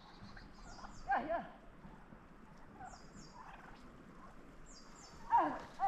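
Turkeys gobbling: two short warbling calls, one about a second in and another near the end.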